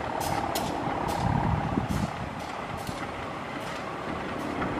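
A diesel passenger train standing at a platform, its engine running steadily at idle, with a faint hum and scattered short clicks and knocks over it.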